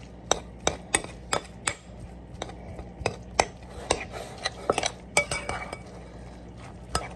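A spoon clinking and scraping against a glass mixing bowl as canned chicken and egg are mashed together. Sharp, irregular clinks come about two or three a second and grow sparser near the end.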